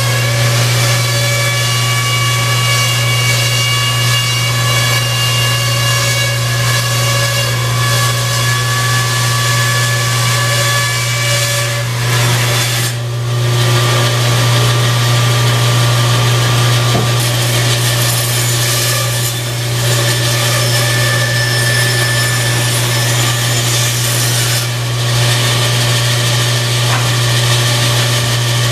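Delta 14-inch bandsaw, freshly rebuilt with a new upper wheel bearing and thrust bearings, running with a steady hum and whine while its blade cuts through blocks of wood in test cuts. The cutting noise eases off briefly a couple of times as the wood is repositioned.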